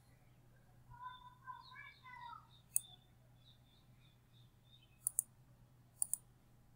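Computer mouse button clicks: a single click, then two quick double clicks, over a faint steady low hum.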